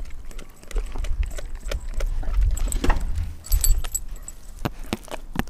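Doberman chewing and gnawing on a frozen raw pig's foot: irregular clicks and cracks of teeth on bone and frozen meat, over a low rumble.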